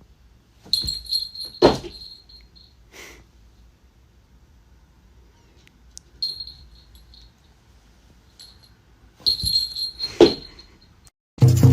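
A small bell jingling in several short bursts, with two sharp thuds about two seconds in and near the end; music comes in at the very end.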